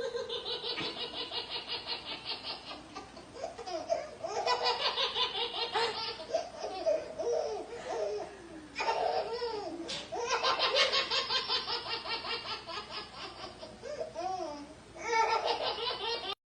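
A baby laughing hard in several long fits of rapid, rhythmic giggles, with short breaks between them.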